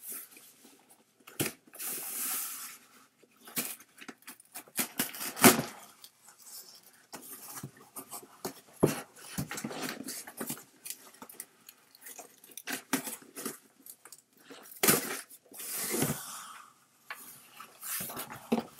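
Cardboard shipping box being handled and opened by hand: irregular rustling, scraping and tearing of cardboard with scattered sharp knocks, the loudest about five and a half seconds in.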